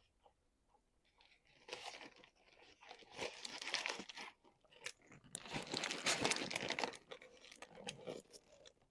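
A person chewing crunchy food: dense crackly crunching in two spells, the louder one about five to seven seconds in, with softer chews near the end.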